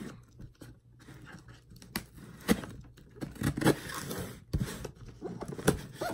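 Scissor blade scraping and slitting through packing tape on a cardboard box, in short strokes with scattered sharp clicks and taps on the cardboard.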